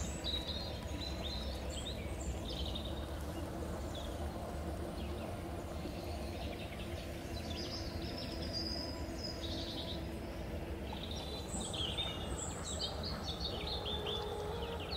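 Small birds chirping and twittering in short, scattered calls on and off, over a steady low background rumble.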